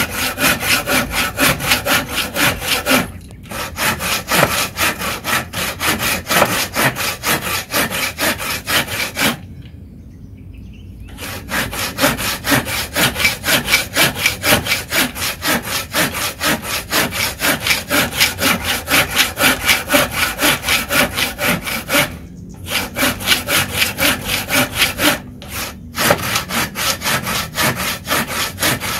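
Tekiro folding hand saw cutting across a wooden block in quick, even back-and-forth strokes, several a second. The strokes stop briefly a few times, the longest break coming about ten seconds in.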